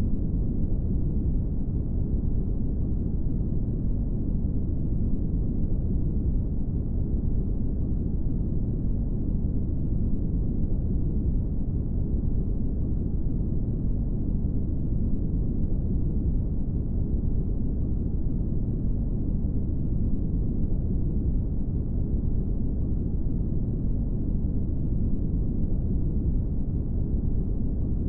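Brown noise: a steady, deep rushing noise, heaviest in the bass and fading out toward the treble, with no changes.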